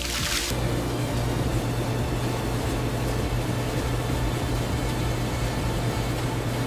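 Steady industrial machine hum under an even hiss, opening with a short whoosh in the first half second.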